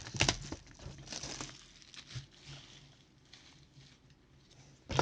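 Plastic wrapping crinkling and tearing as a trading-card hobby box is opened, in a few short rustles in the first second and a half, then only faint handling noise.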